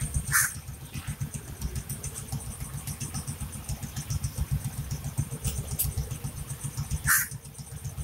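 Idling motorcycle and scooter engines, a steady fast low putter, with two short harsh sounds standing out above them, one about half a second in and one near the end.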